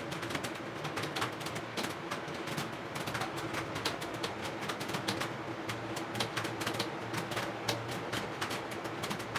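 Several computer keyboards being typed on at once, a dense, irregular clatter of keystrokes from a group taking a timed typing test, over a steady low hum.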